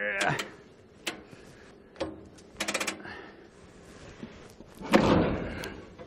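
Knocks and clanks of equipment being handled. Single sharp knocks come about one and two seconds in, then a quick rattle of several clicks, and the loudest sound is a longer rough scraping clatter about five seconds in.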